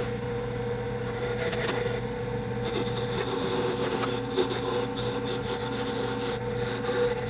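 Wood lathe running with a steady motor hum, while a turning tool cuts the spinning green osage orange with an uneven scraping hiss.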